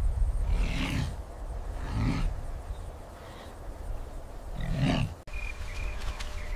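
Three rough, roaring calls over a low rumble: two about a second apart, then a third about three seconds later. They fit a roaring threat display.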